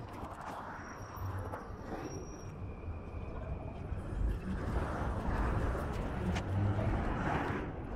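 City street traffic noise: a steady low rumble of cars and a truck passing, louder in the second half.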